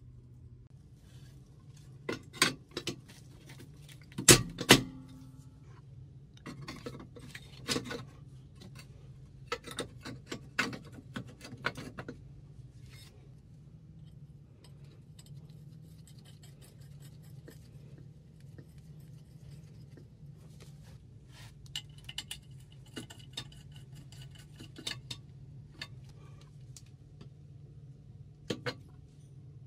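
Intermittent clinks and knocks of metal parts and tools being handled and set down, with the two loudest knocks about four seconds in, over a faint steady low hum.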